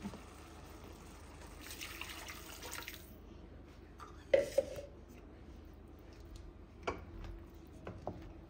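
Water poured from a plastic measuring jug into a steel pot of rice, a splashing pour that stops about three seconds in. A little after four seconds come a couple of sharp knocks, then a few light taps of a wooden spoon stirring the rice in the pot.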